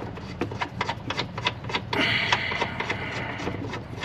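Metal clicks and clinks of tools and bolts being handled at a car's transmission mount, irregular and several a second, with a denser rattling stretch lasting about a second and a half, starting about two seconds in.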